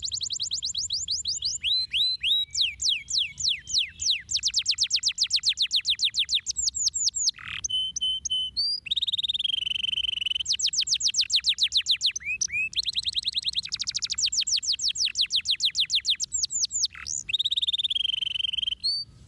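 Domestic canary singing a continuous song made of fast trills: long runs of rapid, repeated, falling whistled notes, broken a few times by short held notes. The song stops just before the end.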